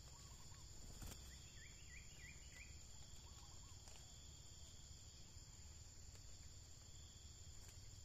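Steady high insect trilling, like crickets, with faint bird chirps over it: soft warbled notes near the start and about three seconds in, and a quick run of five rising notes about a second and a half in. A single click sounds about a second in.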